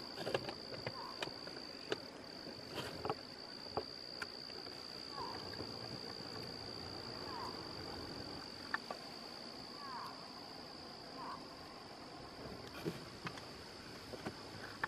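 Insects trilling in one steady high-pitched note, with a few faint short chirps and scattered light clicks.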